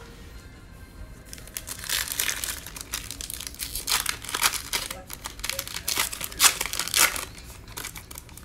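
Shiny plastic wrapper of a trading card pack being torn open and crinkled by hand. It is a run of crackling rustles that starts about a second and a half in, peaks in loud crinkles toward the end, and then settles.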